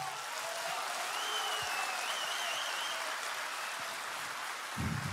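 Crowd applauding in a large hall, with a faint wavering high tone over the clapping.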